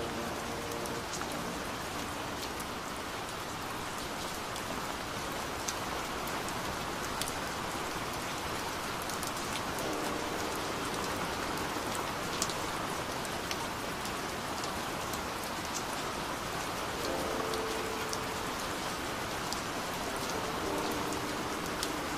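Recorded steady rain: an even hiss with scattered sharp drop ticks.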